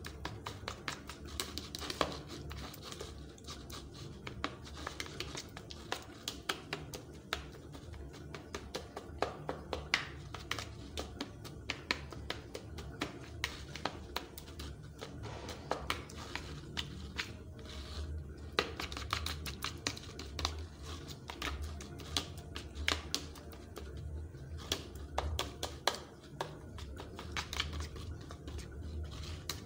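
Metal spoon stirring ground groundnuts and water in a plastic bowl, clicking and scraping against the bowl several times a second in an irregular rhythm.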